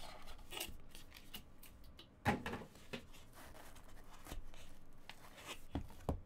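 Cardboard trading-card box being handled: the lid slid off the tray and a plastic-cased card lifted out of its foam insert, with soft scraping and a few light knocks, the sharpest about two seconds in.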